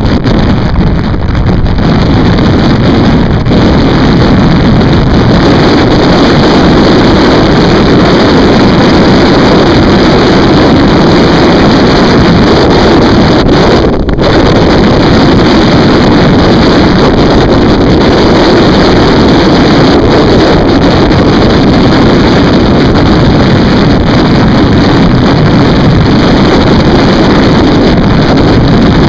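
Loud, steady wind rush on the microphone of a motorcycle cruising at road speed, with the bike's running engine under it.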